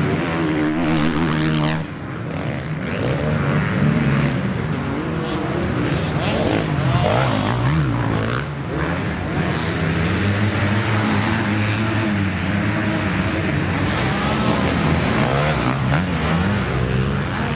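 Motocross bike engines revving hard, the pitch rising and falling over and over as the throttle opens and closes. The level drops suddenly about two seconds in, then the revving carries on.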